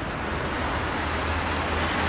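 Steady rushing wind noise on the microphone with a low rumble underneath, growing gradually louder.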